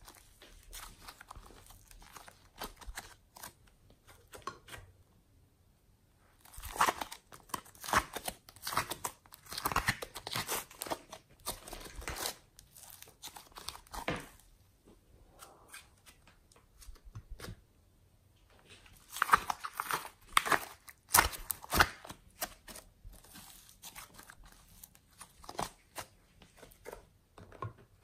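Hands stretching, folding and squeezing thick clay-mixed slime, the surface tearing with sticky crackles and pops. The crackling comes in two busy spells, with sparser, quieter crackles between them.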